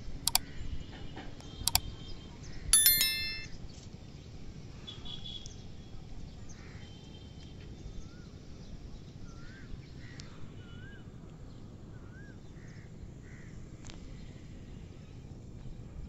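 Two mouse-click sound effects and then a bright bell ding from a subscribe-button animation, the ding the loudest of them. Quiet outdoor background with faint bird calls follows.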